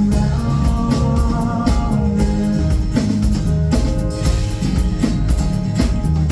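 Live band playing during a sound check: a drum kit keeps a steady beat under guitar and sustained pitched notes.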